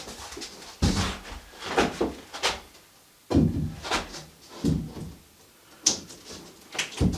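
A series of irregular knocks and thuds, about eight in a few seconds, some with a short ring after them.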